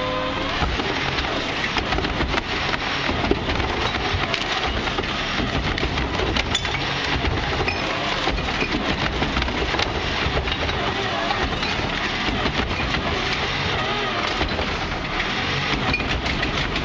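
Rear-load garbage truck (1997 Crane Carrier LET with Wayne Royal GT body) running steadily while its hydraulic cart tipper raises a wheeled recycling cart and holds it inverted over the hopper. Many knocks and rattles come from the tipper and the cart's contents, with a brief whine at the start.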